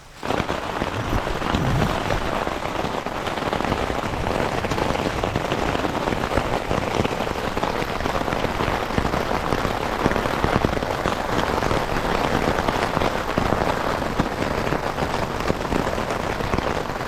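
Really heavy rain beating steadily on the fabric of a small tent, a dense downpour that comes in suddenly at the start.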